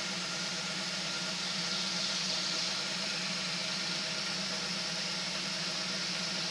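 1969 Ford Bronco's engine idling steadily, with a steady hiss over it.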